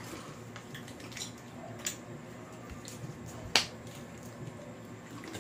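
Quiet chewing of sticky chocolate bars, with a few sharp clicks; the loudest comes about three and a half seconds in.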